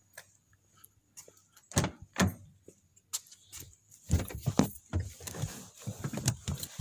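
Ford Mustang GT's door being opened and a person getting into the passenger seat: two sharp clicks about two seconds in, then a run of bumps, knocks and rustling from about four seconds on as they settle into the car.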